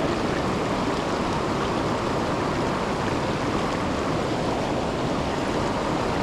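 Steady rush of river water pouring over a waterfall, an even, unbroken noise.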